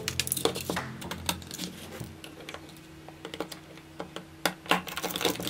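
Irregular light clicks and taps from hands and a pen-shaped tool handling the opened plastic body and flash circuit of a disposable camera.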